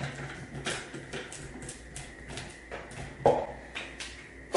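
Hands handling stiff copper wiring and a plastic wall switch in an electrical box: a run of small clicks and taps, with one louder knock about three seconds in.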